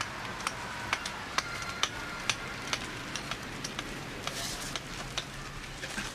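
Sharp knocks about two a second, some with a brief ring, over a steady hiss.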